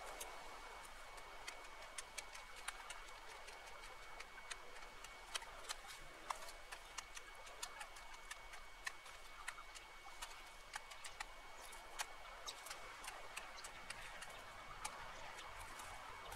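Irregular sharp snaps and crackles of brush twigs and branches being cut with loppers and broken up, many small cracks a second or so apart, some louder than others.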